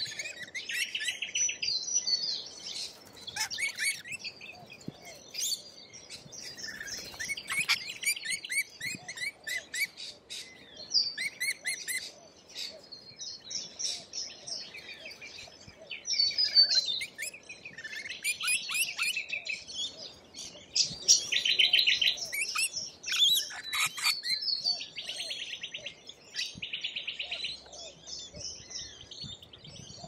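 A feeding flock of rainbow lorikeets chattering: overlapping shrill screeches and buzzy, rapid chattering calls that go on without a break.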